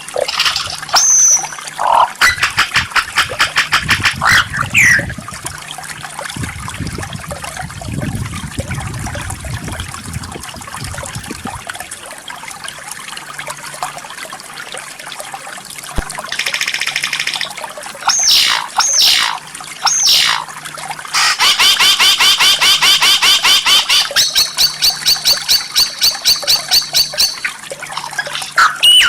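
White-rumped shama song: sharp whistles, then steep rising and falling whistled notes, then a long, very rapid rattling trill, the machine-gun-like 'tembakan' phrase, loud and even, for most of the last third.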